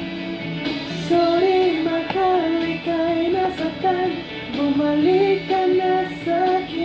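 Background music: a song with a woman's high voice singing the melody.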